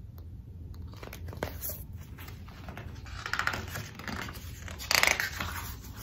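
Paper rustling and crinkling as a hardcover picture book's pages are handled, with a run of irregular scrapes that grows louder about three and a half seconds in and again about five seconds in.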